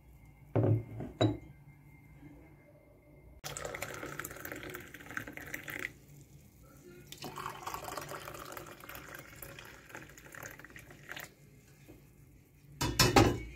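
Hot tea poured into two ceramic mugs one after the other, each pour a few seconds of steady splashing. Two sharp china clinks come near the start, and a louder clatter of crockery comes near the end.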